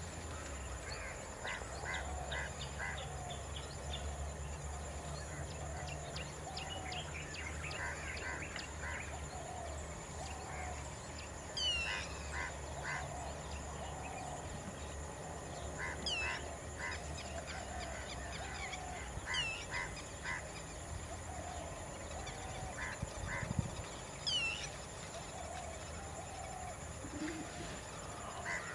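A chorus of wild birds calling: short low calls repeated over and over, bursts of quick chattering notes, and now and then a high falling whistle. A low steady hum runs under the first half, and a single low thump comes about two-thirds through.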